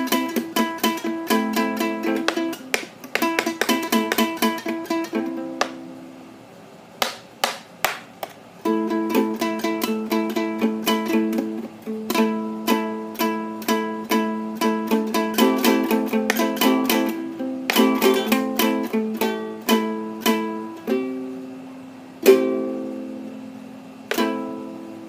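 Ukulele strummed with a coin used as a pick, in quick chord strokes, each with a sharp, bright attack. The strumming thins to a few separate strokes around six to eight seconds in, picks up again, and ends with two single chords left to ring out.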